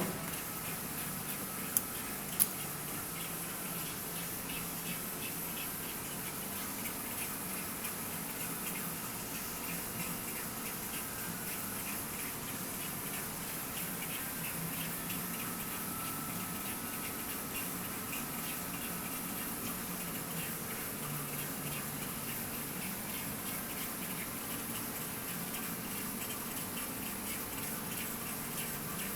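Mitsubishi wire-EDM machine cutting: a steady fine crackle of spark discharges with the hiss of flushing water. Two sharp clicks about two seconds in.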